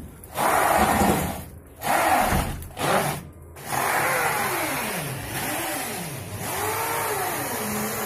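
Steel folding garage door clad in galvalume sheet being pushed along its track. First come several short scraping bursts, then from about four seconds in a steadier scraping with a squeak that keeps rising and falling in pitch.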